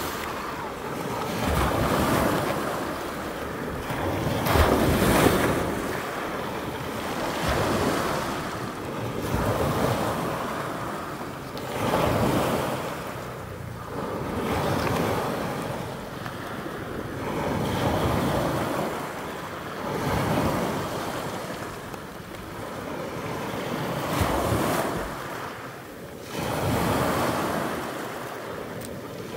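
Sea waves breaking and washing on the shore, swelling and fading every two to three seconds, with wind blowing on the microphone.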